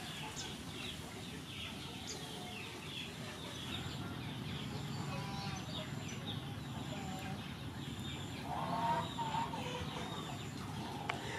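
Small birds chirping with quick repeated chirps, and a chicken clucking briefly about two thirds of the way through.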